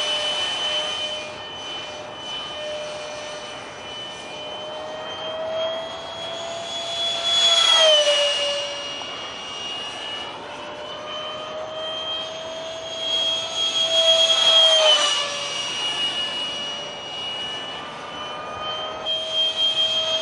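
High whine of a Detrum 70 mm electric ducted fan on a foam RC jet in flight. It grows louder and then drops in pitch twice, about 8 and 15 seconds in, as the jet flies past, and swells again near the end.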